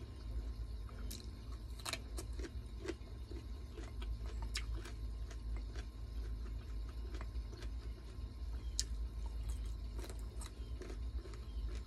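A person chewing and eating close to the microphone: scattered small clicks and crunches, over a steady low hum.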